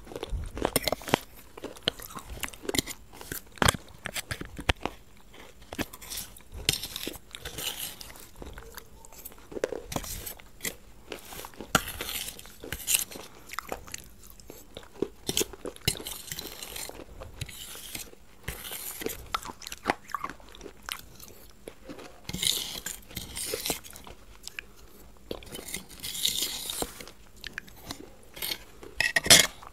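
Close-miked eating of ice cream: chewing and wet mouth sounds with many sharp crisp clicks, mixed with a metal spoon scraping and clinking on a metal plate. A loud click comes near the end.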